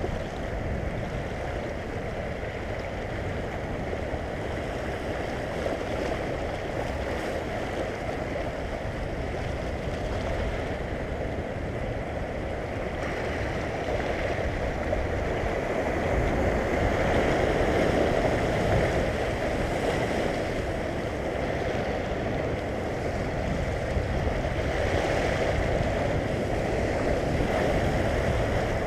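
Small sea waves washing over a shallow rocky reef: a steady rush of water that swells louder about halfway through and again near the end.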